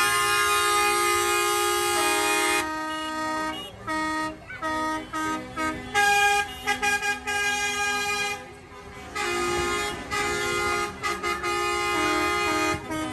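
Tractor horns honking: several long held blasts broken by runs of short toots.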